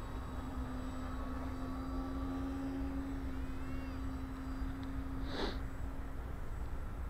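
Steady hum of the motors of a radio-controlled scale model Short S.23 Empire flying boat flying low over the water, with wind rumble on the microphone. About five seconds in, a brief cry sweeps from high to low and the hum drops away.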